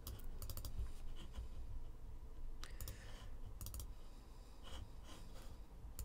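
Computer mouse clicking in short quick runs of clicks, about four times, over a low steady hum.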